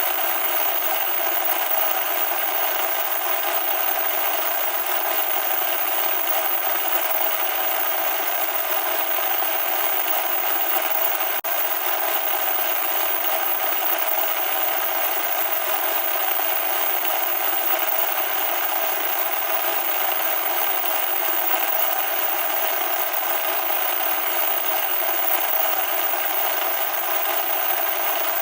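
Loud, steady static noise: a harsh, even hiss with no low rumble under it. It drops out for an instant about eleven seconds in.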